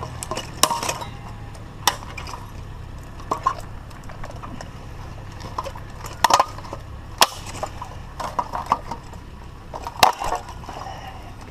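Scrap items being handled and packed: scattered clinks and knocks, some glassy, over a steady low hum.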